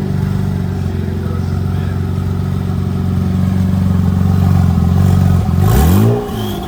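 Dodge Magnum's stock Hurricane twin-turbo inline-six idling steadily, then a single quick throttle blip near the end, the pitch rising and dropping back to idle.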